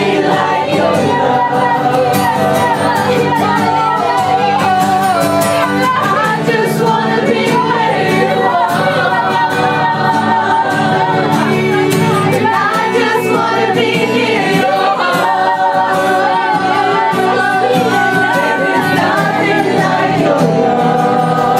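Live worship music: voices singing over a steady band accompaniment, with drawn-out, wavering vocal lines.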